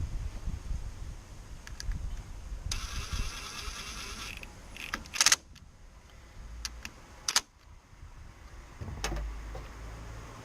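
A rapid ratcheting rattle for about a second and a half, then a few sharp clicks, from hand work with tools and parts on the engine's ignition coils.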